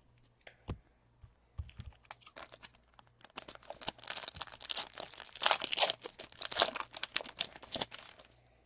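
Foil wrapper of a trading-card pack crinkling as it is torn open: a few scattered clicks, then a dense run of crackles from about three seconds in that stops shortly before the end.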